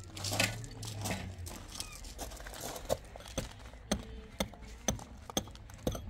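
A shovel scraping in gravel, then a run of sharp taps and clicks, about two a second, as work goes on at ground level among gravel and a hammer.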